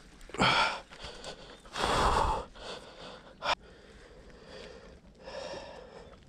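A man breathing hard close to the microphone: three loud, gasping breaths, the loudest about two seconds in. A short sharp click comes about three and a half seconds in.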